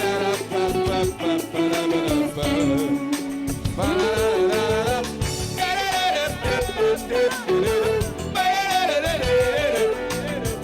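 A pop song playing between sung verses: a wavering melody line over a steady beat, without words.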